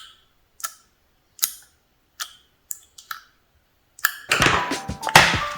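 A series of single sharp clicks, about one every three-quarters of a second, each with a brief ringing tail. Music comes in about four seconds in.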